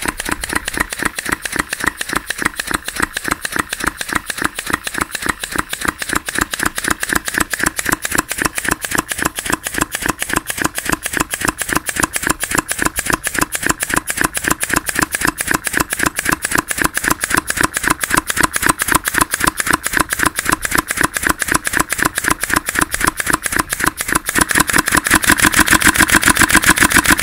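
3D-printed V-twin compressed-air engine running, each cylinder's quick exhaust valve letting go with a sharp crack of released air. The cracks come in a rapid, even chain, several a second, and get louder in the last few seconds.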